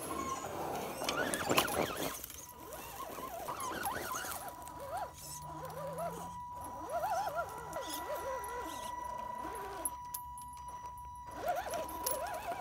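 Radio-controlled scale crawler's brushed 540 electric motor and speed controller whining as the truck crawls slowly over rocks: a steady high whine with a wavering squeal from the motor and gears that rises and falls with the throttle.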